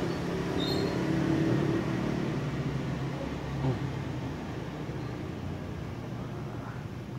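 Low, steady rumble of motor-vehicle traffic, loudest in the first couple of seconds and then slowly fading, with one faint click a little past halfway.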